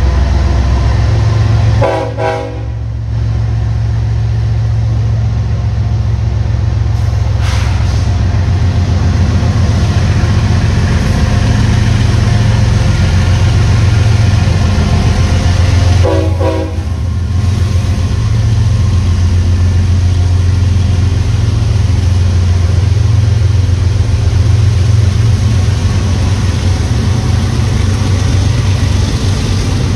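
Several diesel freight locomotives, BNSF and Kansas City Southern units, pass close by with a loud, steady low engine rumble. The rumble dips briefly about two seconds in and again about sixteen seconds in, as the gap between units goes by.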